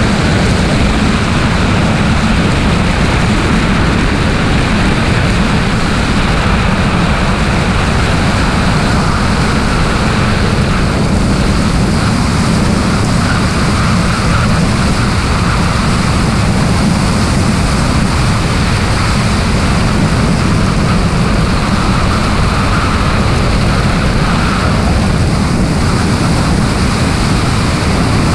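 Loud, steady rush of freefall wind buffeting a helmet camera's microphone.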